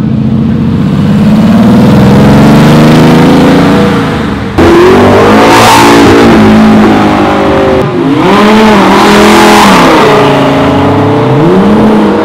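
Sports-car exhausts revving and accelerating as cars drive past, the engine note climbing and falling repeatedly. The sound breaks off and changes abruptly twice.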